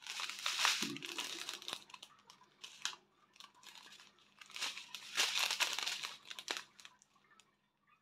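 Plastic packets crinkling and rustling in irregular bursts, loudest about two-thirds of the way through, with small clicks as the packets are handled.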